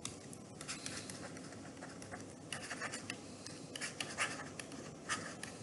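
Faint scratching and tapping of a stylus on a tablet screen, in many short strokes as handwriting is written.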